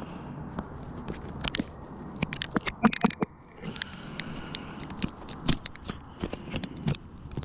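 Close handling noise: irregular clicks, taps and scrapes from hands working near the microphone, with the densest run of sharp clicks about two and a half to three seconds in, over a steady low rush.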